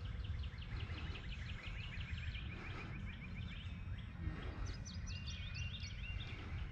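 Birds singing: a fast trill of short high chirps, then higher notes near the end, over a steady low wind rumble.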